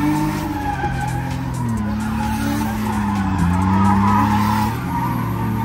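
Drift car engine revving, its pitch rising and falling as the car slides, with skidding tyres. It grows louder a little past the middle.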